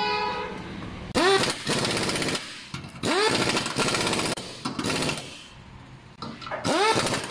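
Impact wrench hammering in three bursts of a second or so, each with a whine that rises and falls as the motor spins up and slows.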